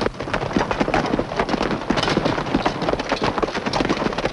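Hoofbeats of several ridden horses moving fast on hard ground, a dense, uneven clatter of hooves.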